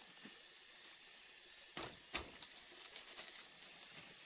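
Bamboo poles of a shelter frame being handled: two sharp knocks close together about two seconds in, then light rustling and ticking, over a faint steady forest hiss.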